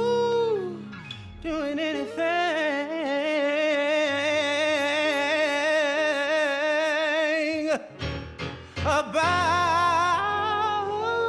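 Song from a film musical: long held sung notes with wide vibrato over musical backing, breaking off about eight seconds in before another held note.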